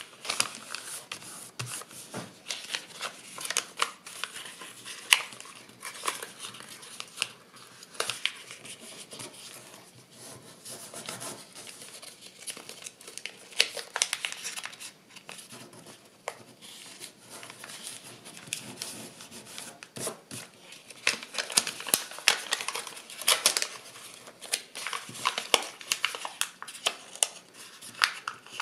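Sheets of kraft paper being folded and creased by hand: irregular crinkling and rustling, with sharp crackles as the folds are pressed down and tucked in.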